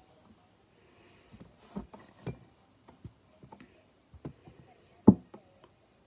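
Scattered light clicks and knocks of small objects being handled, with one louder knock about five seconds in.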